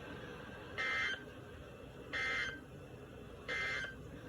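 Emergency Alert System end-of-message signal: three short bursts of SAME digital data tones, evenly spaced about a second apart, marking the end of the alert.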